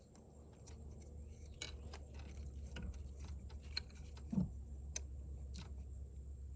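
Scattered, irregular light clicks and taps of hand work on a car engine, over a steady low hum, with one heavier thump about four seconds in.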